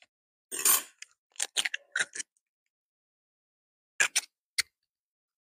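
An egg cracked against a small glass bowl: a short crunch about half a second in, then a quick run of sharp clicks of shell and glass. Three more clicks come near the end as the shell halves are pulled apart over the bowl.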